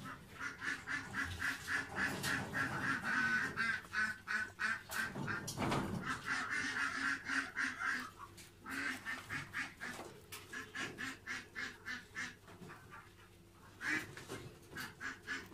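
Bird calls in quick runs of short, repeated notes, several a second, breaking off briefly twice, with a brief rustle about five and a half seconds in.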